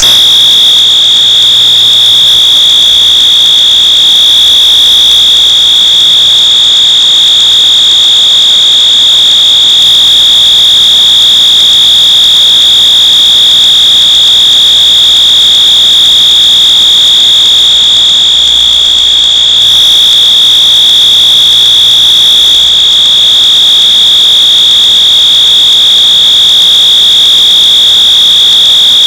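Wheelock MT multitone fire alarm horn sounding on its continuous horn setting: one unbroken, very loud, high-pitched tone that switches on at the start.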